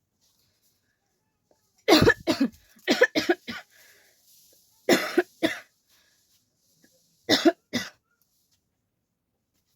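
A person coughing in four short fits of two or three harsh coughs each, starting about two seconds in.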